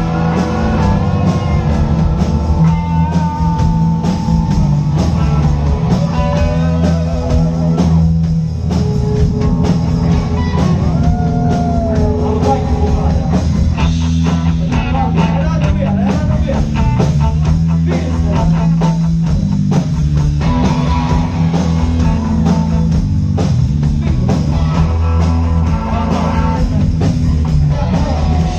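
Live rock band playing loud, with several electric guitars over drums and a heavy low end.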